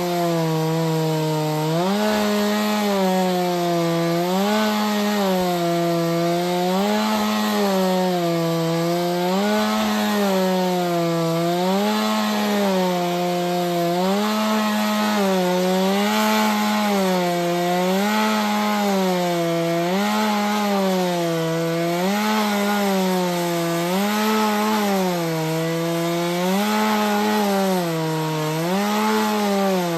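Two-stroke chainsaw on a chainsaw mill running at full throttle, ripping a log lengthwise. Its pitch dips and recovers about every two seconds as the cut loads the engine.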